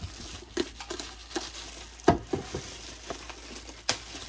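Plastic packaging crinkling while the pieces of a plastic food storage container set are handled, with several sharp clicks and knocks of plastic on plastic, the loudest about two seconds in.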